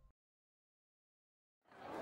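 Near silence: a faint trace of the intro music ends at the start, then background noise from the live recording fades in near the end.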